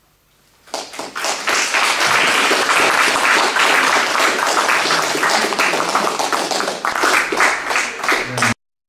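Audience applauding: many hands clapping together, starting about a second in, holding steady, then cutting off suddenly near the end.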